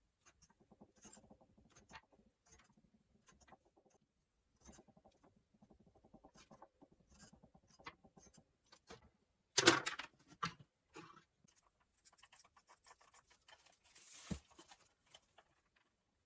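Light handling noises from craft work: scattered small clicks and rustles, a louder clattering rattle about ten seconds in, and a single sharp knock near the end.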